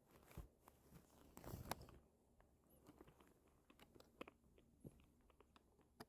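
A cat chewing and crunching food: faint, irregular crisp clicks, with a louder burst of crunching about a second and a half in.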